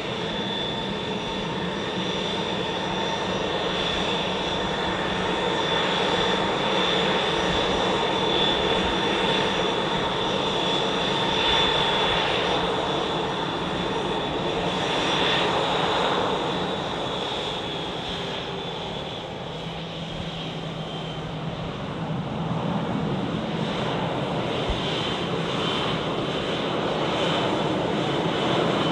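Airbus A320-200's twin turbofan engines at taxi idle as the jet rolls past: a steady high whine over a broad rushing hum. The whine fades about two-thirds of the way through, leaving the hum.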